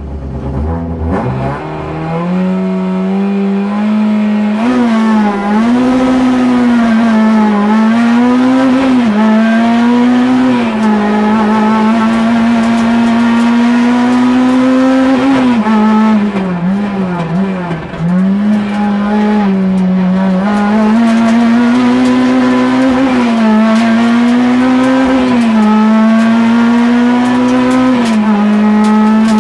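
Peugeot 106 Kit Car rally car's four-cylinder engine heard from inside the cabin, running hard at high revs on a special stage. The revs repeatedly drop and climb again with gear changes and throttle lifts, and fall lower and waver briefly about two-thirds of the way through.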